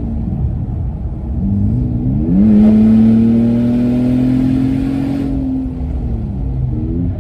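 Ford Taurus SHO's twin-turbo V6, with its cat-back exhaust deleted, heard from inside the cabin under hard acceleration. The engine note climbs steeply about two seconds in, keeps rising slowly at full load with a rush of hiss, then falls away near the end.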